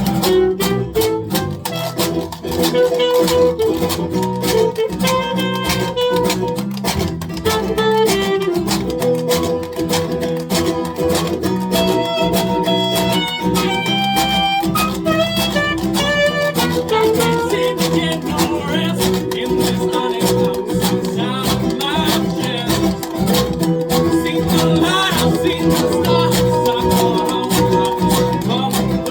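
Live folk band playing a song, led by strummed guitar with a steady rhythm.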